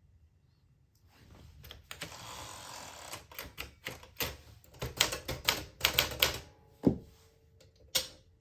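Keys of a 1959 Smith Corona Sterling manual typewriter striking the platen in a quick, irregular run of clicks, then two heavier single knocks near the end.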